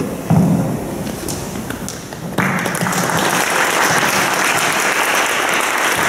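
A single low thump just after the start, then audience applause breaks out suddenly about two and a half seconds in and keeps going.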